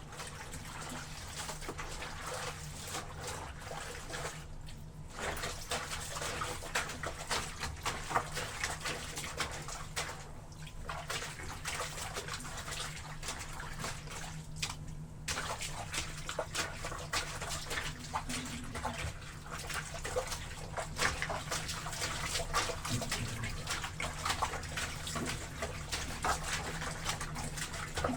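Water sloshing and splashing in a tub as laundry is washed, with many small splashes and a few brief pauses.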